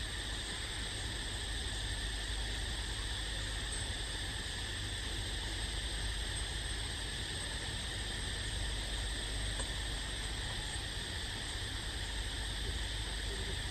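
Steady chorus of forest insects, cicadas or crickets, with a low rumble underneath.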